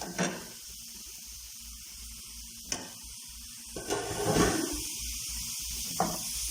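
Fish sizzling in a frying pan with onions and mushrooms: a steady hiss of frying, with a few short knocks and a louder stir about four seconds in.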